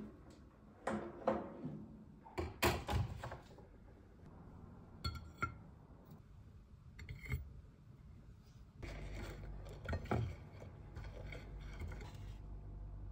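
Metal baking tray and wire rack clattering as they are pulled out of a countertop electric oven, followed by light knocks of cookies being set down on a ceramic plate. A low steady hum starts about nine seconds in.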